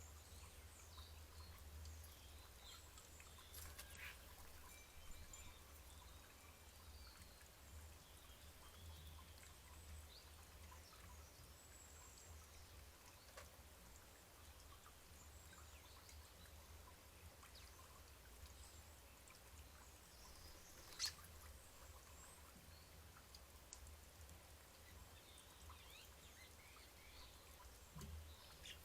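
Near-silent garden ambience: a steady low hum with scattered faint, short bird chirps and calls. One sharp tap stands out about two-thirds of the way through.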